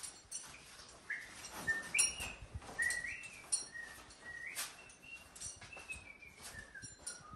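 A series of clear whistled notes, some sliding up into pitch, the last few stepping lower near the end, over soft footsteps on sand.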